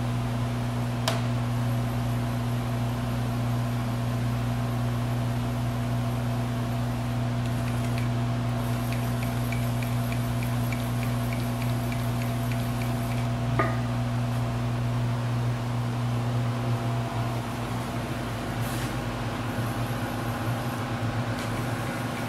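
Webb Champ CNC vertical mill running with a steady electrical hum from its motors and drives while its table is jogged along the X and Y axes. A quick run of light ticks, about three a second, comes partway through, followed by a single click.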